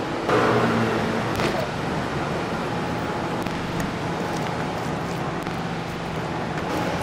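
Steady background noise with a low hum, like traffic or room ambience. A brief louder sound comes in the first second and a half.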